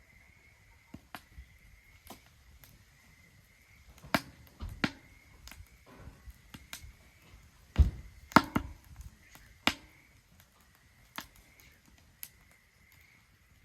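Firewood burning in a Solo Stove Ranger fire pit: scattered sharp crackles and pops, with a cluster of louder knocks and snaps around the middle.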